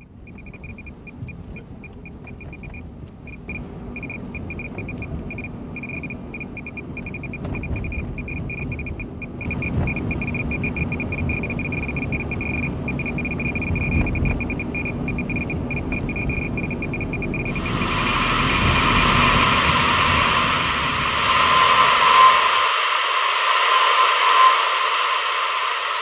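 Low rumble of a car driving, with a radiation meter giving a high, stuttering beep tone. About two-thirds of the way in, a loud hiss of television static comes in over it, and the rumble stops shortly after.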